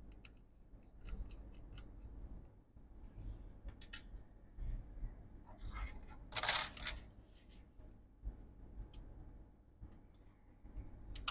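Light clicks and small metallic clinks of tiny screws and a screwdriver being handled on a desk during laptop disassembly, with one louder brief rattle about six and a half seconds in.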